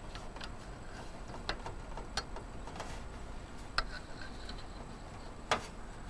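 A few light, scattered clicks and ticks from handling inside an open PC case, over a low steady hum. The loudest click comes near the end.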